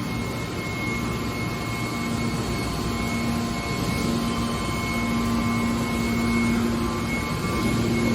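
Hydraulic metal baler running: a steady machine drone with a low hum and a thin high whine, the hum growing a little stronger in places.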